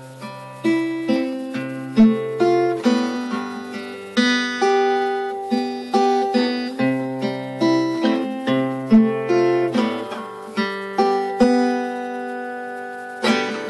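Music: a guitar picking a slow run of single plucked notes, each ringing out, over lower bass notes.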